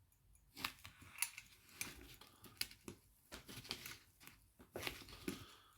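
Small metallic clicks and taps, irregularly spaced, from handling a silver pocket watch while setting its hands and closing it up.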